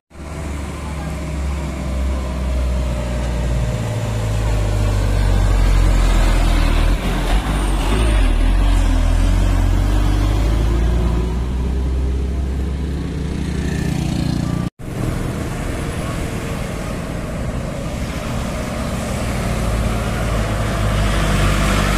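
Diesel truck engines labouring up a steep hill, a heavy low engine note whose pitch rises and falls. The sound drops out for an instant about two-thirds through, then another truck is heard climbing.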